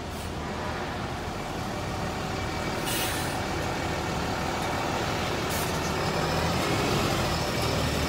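Heavy truck diesel engine running steadily, growing slowly louder, with a sharp hiss of compressed air from the truck's air brake system about three seconds in and a shorter hiss a couple of seconds later.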